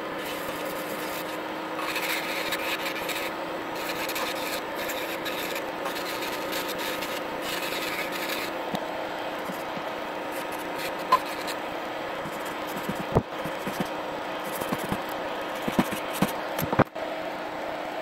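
Small rotary tool running with a steady whine while grinding plastic off the side of a 1:64 model car's chassis base. There are rasping strokes through the first half and a few sharp clicks near the end.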